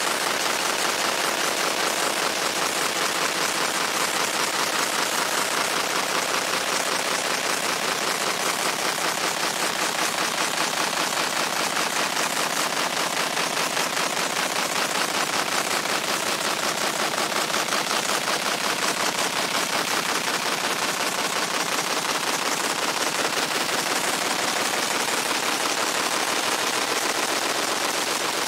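Fiber laser engraving the steel head of a sledgehammer: a steady, rapid crackling buzz as the pulsed beam ablates the metal.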